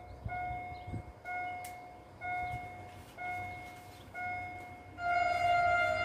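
A pitched tone sounding in short pulses about once a second, then about five seconds in a louder, steady train horn blast begins and holds: the driver giving the Polish Rp1 "Baczność" (attention) signal.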